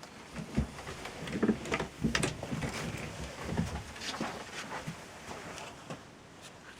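A string of irregular soft thumps and clicks over a low background hiss, cutting off abruptly at the end.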